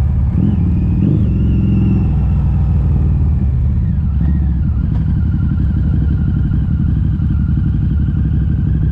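Harley-Davidson V-Rod Muscle's Revolution V-twin running loud through Vance & Hines slip-on mufflers with the catalytic converters removed. The revs rise briefly twice in the first second or so, then the engine settles into a steady note from about four seconds in.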